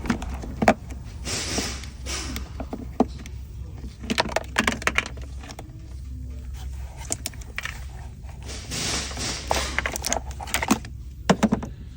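Hands working on car wiring: scattered clicks, rustles and light metallic rattles over a steady low hum.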